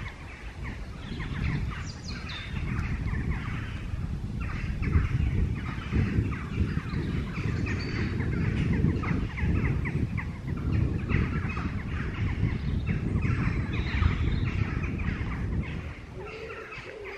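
Birds calling over a steady low rumble; the rumble drops away about a second before the end.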